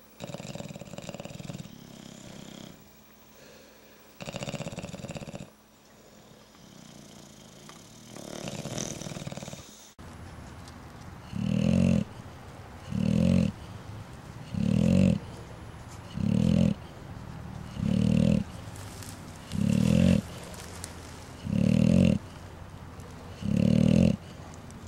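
Sleeping bulldogs snoring. A few uneven, softer snores come in the first ten seconds, then a steady run of eight loud, rasping snores about every second and a half to two seconds.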